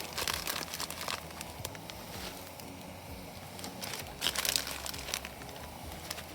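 Crinkling and rustling of something being handled, in two bursts about three seconds apart.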